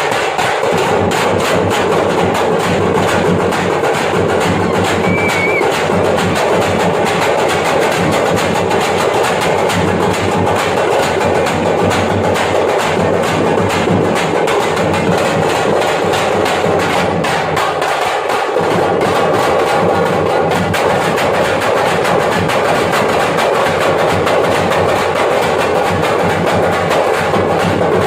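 Thappattam (parai) frame drums beaten with sticks by a group of drummers, a dense, unbroken rhythm of sharp strokes.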